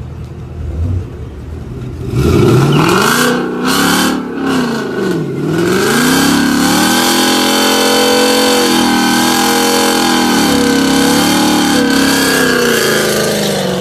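V8 engines of a street drag race launching at full throttle about two seconds in. They climb in pitch with three quick upshifts, then hold high revs in one long pull before letting off near the end.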